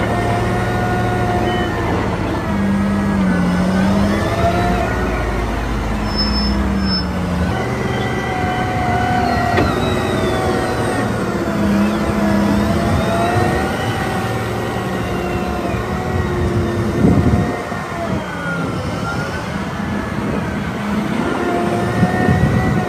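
Caterpillar 990 wheel loader's V12 diesel engine revving up and down in long swells as the loader lifts, tips and digs. Rough rushing bursts come about 17 seconds in and again near the end, as loads of material are dumped into a truck bed.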